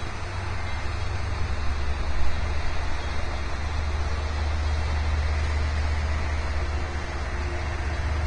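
Steady low rumble of the car ferry Emerald Isle's engines as it passes close by, under a continuous hiss.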